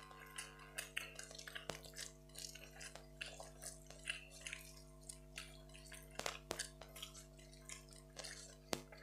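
Faint sounds of rice and curry being eaten by hand: quick wet smacks and clicks of fingers mixing food on steel plates and of chewing, with a few sharper clicks, over a steady hum.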